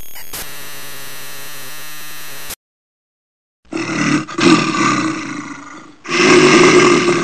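A steady electronic tone held under the glitchy intro, cutting off suddenly after about two and a half seconds. After a short silence come two long, rough roars, the second starting about six seconds in.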